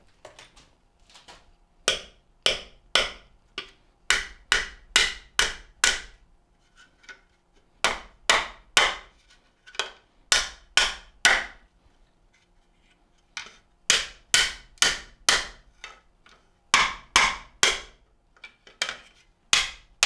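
Repeated hard blows on a 3D-printed carbon-fibre-filled nylon part, coming in quick runs of three to five about two a second with short pauses between. The part takes the blows without breaking, showing how tough the nylon is.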